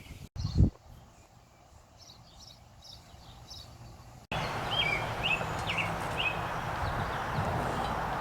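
Birds chirping briefly over outdoor background noise, with a single thump about half a second in. Partway through, the background suddenly jumps to a louder, steady rushing noise.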